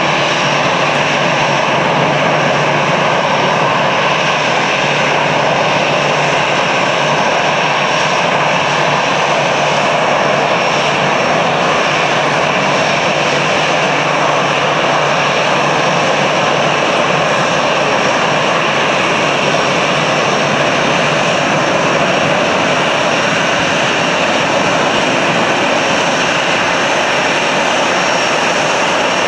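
Airbus A320's jet engines running at taxi idle as the airliner taxis. A steady rush of air with a high whine held level and a low hum underneath, unchanging throughout.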